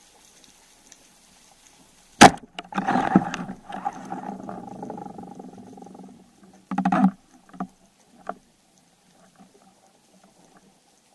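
A roller speargun firing underwater: one sharp, loud crack about two seconds in. It is followed by a few seconds of rattling noise with a low hum as the shaft and shooting line run out, and another short clatter about four and a half seconds after the shot.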